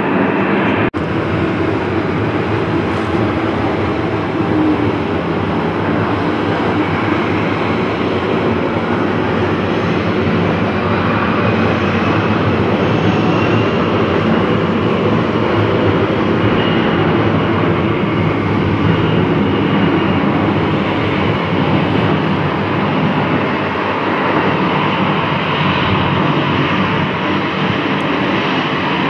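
Jet engines of a Bombardier CRJ regional jet running at high power as it moves along the runway: a steady, loud roar with a faint whine that slowly shifts in pitch. There is a brief break about a second in.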